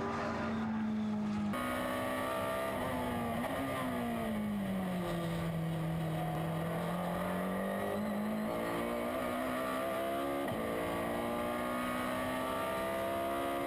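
Ferrari GT race car engine heard from inside the cockpit, running at speed. Its note slides down through a slower stretch and then climbs again, with a few sudden pitch changes from gear shifts later on.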